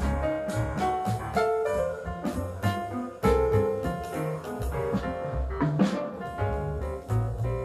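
Jazz piano trio playing: acoustic grand piano in front, with double bass and drums underneath.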